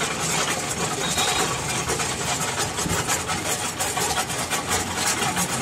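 Homemade electric cement mixer running: its electric motor turns the steel drum through a ring gear while dry cement tumbles inside, a steady churning with a dense fine rattle.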